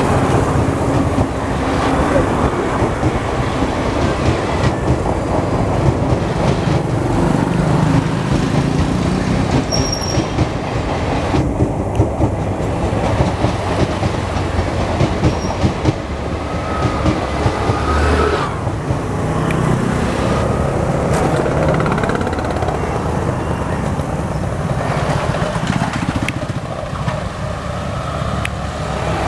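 Passenger train coaches rolling past at close range: a steady rumble of wheels on rail with dense, rapid clicking over the rail joints, the last coach going by near the end.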